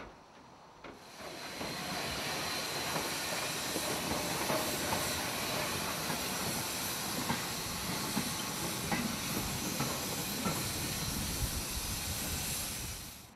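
Steam locomotive hissing steam loudly and steadily, starting about a second in, with scattered light clicks as a train moves past.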